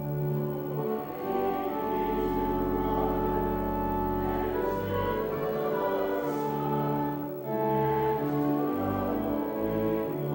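Church organ playing slow, sustained chords that change about once a second, with a deep bass note held beneath them for a while in the middle.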